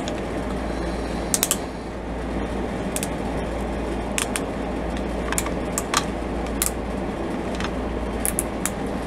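Hard plastic parts of a jointed toy lion figure clicking and knocking as its legs and pieces are moved and folded into flight mode: irregular sharp clicks, roughly one a second, some in quick pairs, over a steady low hum.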